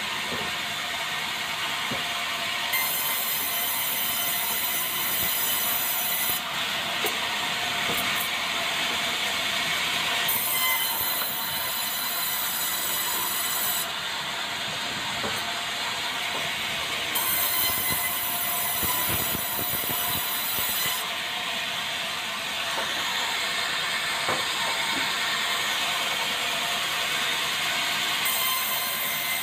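Vertical band sawmill running and ripping a debarked meranti beam into boards, with the rattle of the timber carriage and rollers under it. The sound changes character every few seconds as passes start and end.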